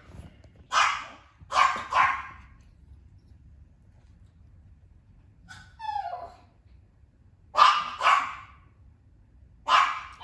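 Small dog barking at a cat: three sharp barks in the first couple of seconds, a pause, then four more near the end. A short falling cry comes midway.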